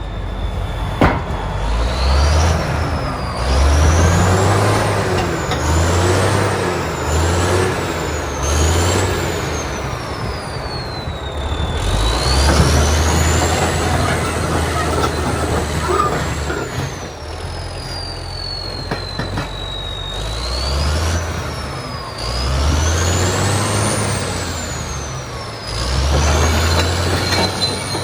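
Caterpillar D7H crawler bulldozer working. Its diesel engine surges under load again and again, and a high squealing whine rises and falls over and over, following the machine's travel.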